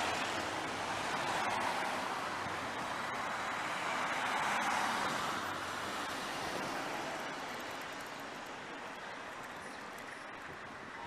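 Street traffic noise: a hiss of passing vehicles that swells twice and then fades away.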